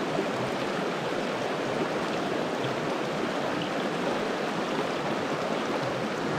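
Shallow, rocky mountain stream flowing steadily over and around stones.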